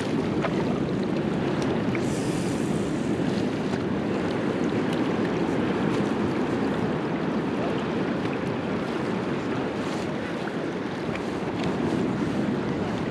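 Steady rushing of water with wind blowing on the microphone.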